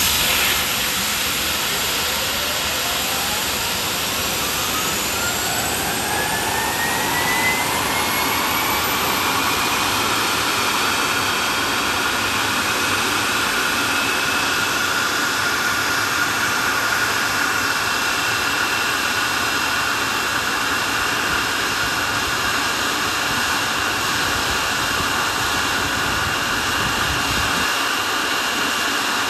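CFM LEAP-1B turbofan of a Boeing 737 MAX 8 spooling up during its start. A whine rises steadily in pitch over the first ten seconds or so, then holds as a steady whine over a loud, even rush of air.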